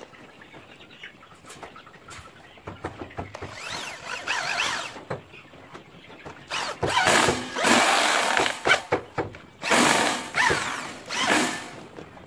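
Corded electric drill running against the steel frame of a wire-mesh chick brooder: three bursts of the whining motor, the first a little quieter.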